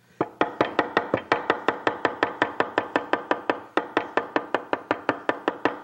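Large chef's knife rapidly chopping fresh parsley on a wooden cutting board: a fast, even run of knocks, about six a second, the blade striking the board at each stroke.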